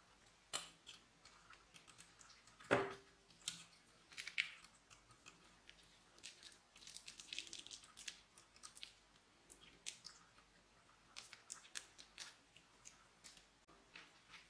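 Scissors snip the tip off a plastic piping bag, with a single knock about three seconds in. Then comes an irregular light crackle of the plastic bag being squeezed and small sequins sprinkling into a glass dish.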